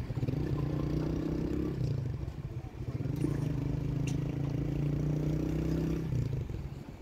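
Motorcycle engine running at steady revs under the riders, its note easing off briefly about two seconds in and again near the end.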